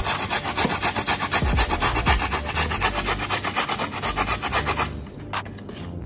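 Fresh ginger root rubbed hard on a stainless steel grater in quick, even rasping strokes, about five a second. The strokes stop about five seconds in.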